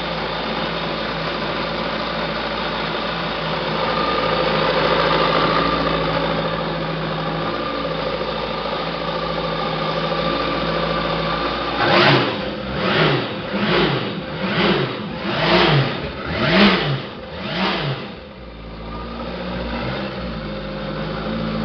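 Yamaha VX Cruiser jet ski's four-cylinder four-stroke engine idling steadily, then revved in about seven quick blips roughly a second apart before settling back to idle. The shop's diagnosis for this ski is throttle-body voltage swings that make the engine run badly.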